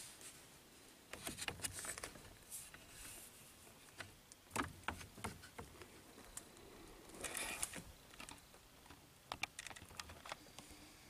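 Faint handling noise of electrical cables being moved by hand: scattered light clicks and short rustles, with a longer rustle about seven seconds in.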